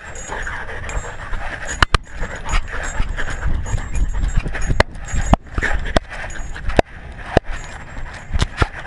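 Dog panting close to a collar-mounted action camera, with sharp irregular clicks and knocks, about one or two a second, as the camera and collar jostle while the dog moves, over a low rubbing rumble.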